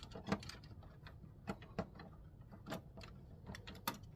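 Scattered light plastic clicks and knocks as a printhead is handled and fitted into an HP Smart Tank 5100 inkjet printer's carriage, about six or seven distinct clicks at irregular intervals.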